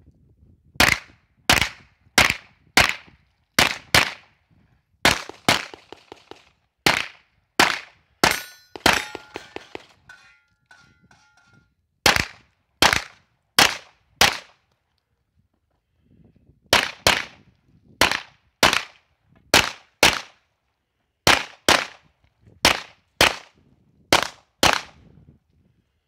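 Pistol shots fired in fast strings during a practical shooting stage: about thirty sharp cracks, mostly in quick pairs, broken by two short pauses. A faint metallic ringing follows the shots about eight seconds in.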